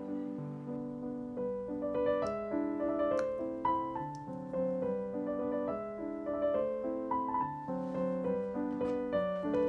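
Background piano music: a gentle melody over held chords.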